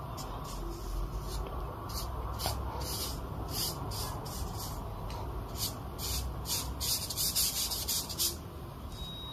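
Bristles of a Chinese ink brush pressed and scrubbed across xuan paper in short, irregular scratchy strokes, coming thicker and louder from about six to eight seconds in.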